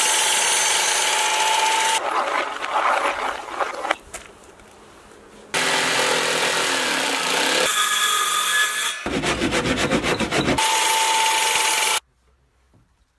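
Power saws cutting wood in a string of short clips with abrupt cuts between them. A mitre saw whines steadily through a block of timber, then a jigsaw rasps through a plywood sheet, and the motor whine comes back near the end before dropping to near silence.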